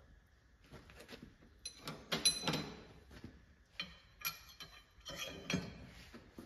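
Light metal clinks and taps as a hand tool works on the steel line boring bar and its fittings. Several of the knocks ring briefly.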